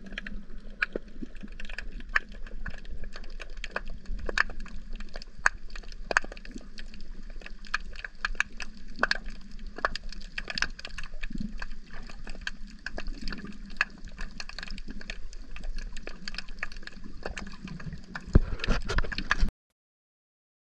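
Sound recorded under water: a dense, steady crackle of sharp clicks over a low rumble of moving water. It grows louder for about a second near the end, then cuts off suddenly.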